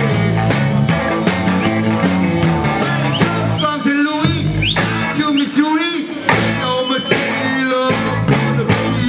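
Live rock band playing: a drum kit keeping a steady beat under electric guitar and bass, with a man singing into the microphone.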